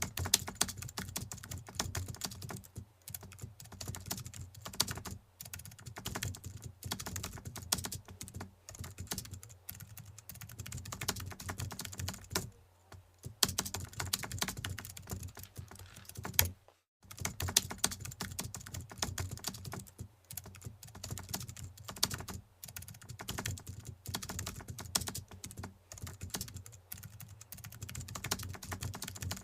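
Typing on a computer keyboard: fast, dense keystrokes in runs broken by short pauses, with a brief full stop about two-thirds of the way through.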